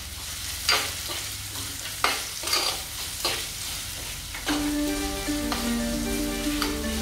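Sliced shallots frying in hot coconut oil in a clay pot, sizzling, with a spoon scraping through them in several stirring strokes. Background music comes in a little past halfway.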